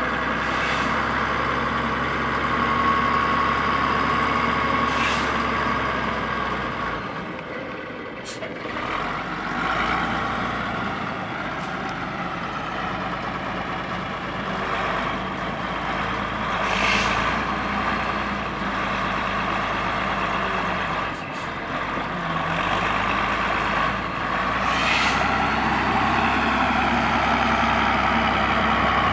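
Diesel engine of a Stalowa Wola Ł-34 wheel loader running under working load while it stacks straw with a fork, its revs easing off briefly twice. Short hisses of air come every few seconds, about five in all.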